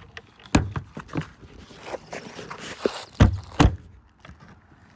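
Footsteps on gravel and several hard thunks, two loud ones close together about three seconds in, as the motorhome's generator compartment door is swung shut and latched.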